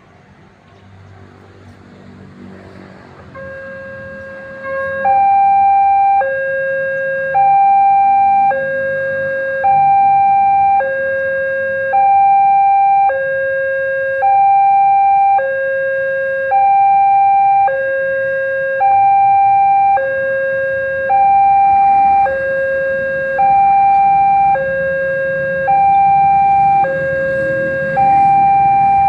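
Railway level-crossing warning alarm: an electronic two-tone signal alternating a low note and a higher note, each held a little over a second, starting about five seconds in. It sounds as the crossing barriers close for an approaching train.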